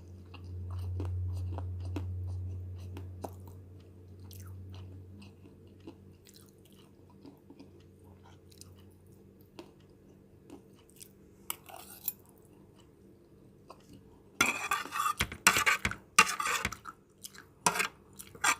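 A person chewing and eating fried noodles close to the microphone, with scattered small wet mouth clicks and a run of louder crunchy chewing bursts near the end.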